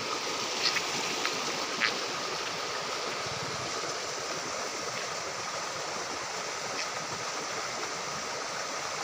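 Steady rushing of flowing water, like a stream. Three short clicks come in the first two seconds.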